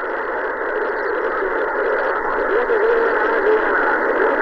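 Japanese citizen-band 27 MHz AM radio in receive on channel 8: a steady, loud hiss of static from its speaker. Faint wavering tones, likely weak stations calling in, sit under the noise.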